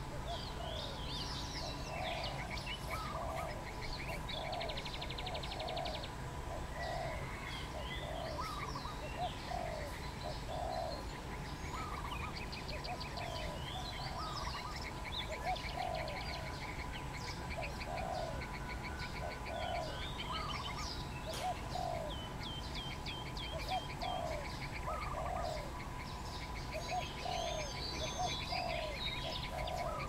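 Wild birds calling together: a low note repeats about once a second throughout, under a mix of higher chirps and quick trills.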